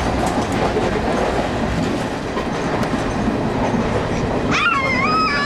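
Passenger train coach running, heard from inside the carriage: a steady loud rumble of wheels on the rails. Near the end a high, wavering call rises over it and holds.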